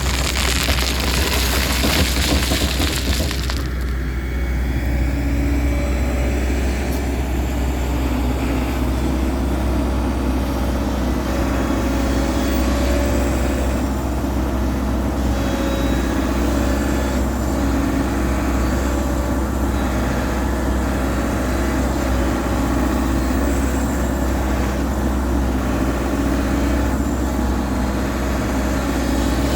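Excavator's diesel engine running steadily under working load, with a loud harsh noise in the first three seconds or so that then stops.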